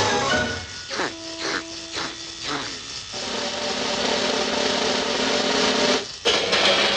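Cartoon sound effect of a machine grinding and rasping, with a steady hum beneath it, that cuts off abruptly about six seconds in.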